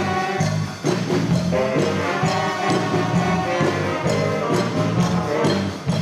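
Children's jazz band playing a lively tune live, led by a section of alto and tenor saxophones, over a steady beat.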